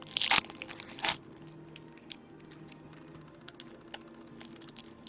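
Crinkling foil wrapper of a hockey card pack being handled and torn open, with two loud rustles in the first second or so, followed by light clicks of cards being shuffled and flipped.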